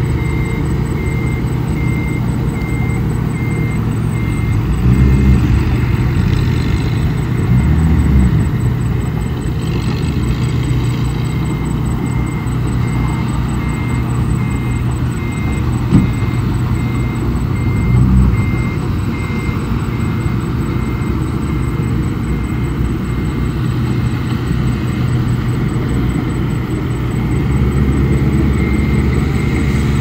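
Komatsu bulldozer's diesel engine running steadily under load, its revs swelling three times as it pushes sand, with one sharp clank near the middle. A faint, evenly spaced beeping sounds alongside.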